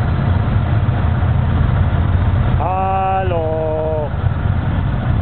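Several motorcycle engines idling together in a steady low rumble. About two and a half seconds in, a held pitched note sounds over them for about a second and a half, dropping a step in pitch halfway through.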